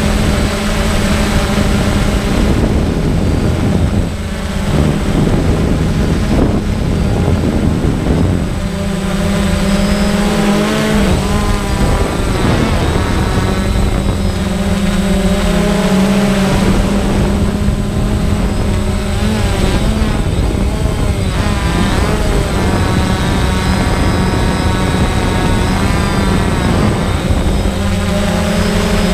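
FPV quadcopter's electric motors and propellers whining, with several tones at once whose pitch shifts and wavers up and down as the throttle changes.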